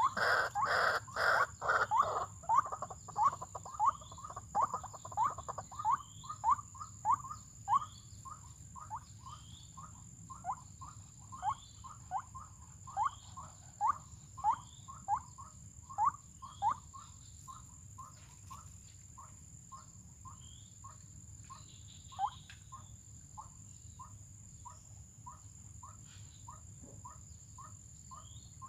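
White-breasted waterhen (ruak-ruak) calling: a loud harsh run of calls in the first two seconds, then a long series of short repeated notes about two a second that grow fainter and sparser. A steady high insect whine runs underneath.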